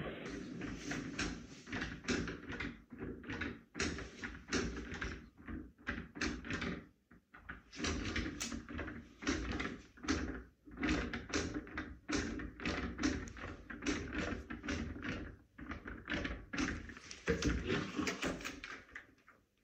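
A busy run of short knocks, rustles and footsteps as a person moves about and opens white folding closet doors by hand.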